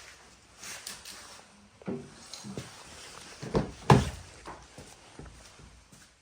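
A series of separate knocks and clunks, the loudest two close together about four seconds in.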